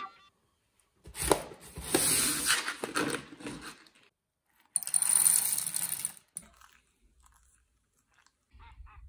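Paper coffee bag crinkling and rustling as it is handled, in two noisy, crackly bursts: one of about three seconds, then a shorter one of about a second and a half.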